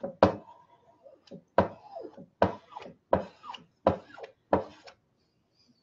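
Chalk paste being slapped onto a stencil laid over a framed sign board: six sharp knocks, evenly spaced, each with a brief falling ring.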